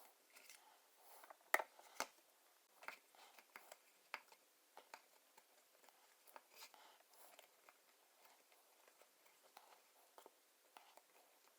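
Faint, scattered clicks and taps from hands handling small plastic Play-Doh moulds, with two sharper clicks about one and a half and two seconds in.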